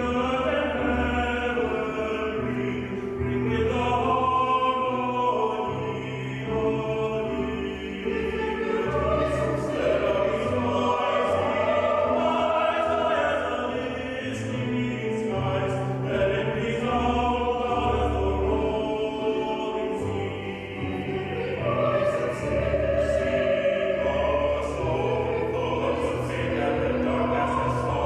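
Voices singing as a choir with instrumental accompaniment, low bass notes sustained under them: a performance of African American sacred music.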